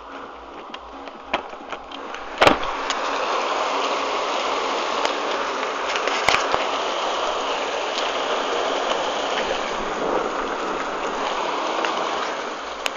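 Rain pouring down in a steady rush that swells about two and a half seconds in, with a couple of sharp knocks.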